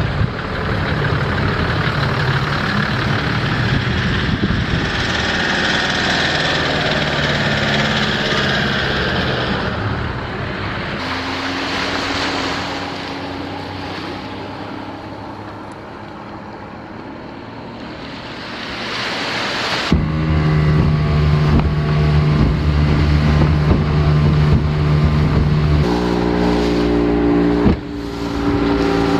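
Boat motor running under way, with wind and water rushing past. The engine note and the rush change abruptly several times.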